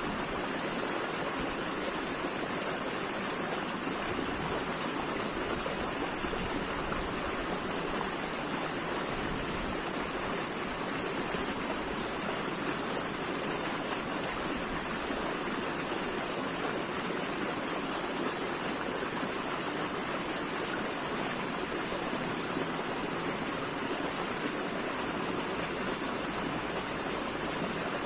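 Running water rushing steadily, like a stream or small cascade, with an even hiss and no breaks or changes.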